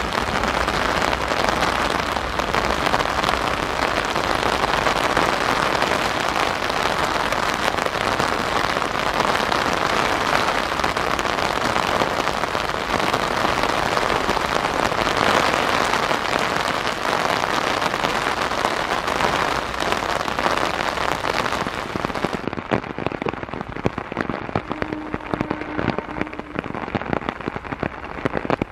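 Heavy downpour: a steady, dense hiss of rain. About 22 seconds in the sound turns duller and a little quieter.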